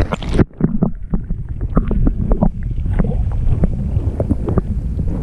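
Wind rumbling on the microphone on the water, with many short light knocks, after an abrupt cut about half a second in.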